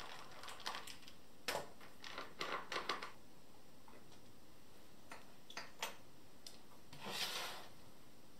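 Scattered clicks, taps and small knocks of hands and a screwdriver working on a small table's metal leg fittings, as a leg and the screws of a leg mounting plate are taken out. A short scrape near the end.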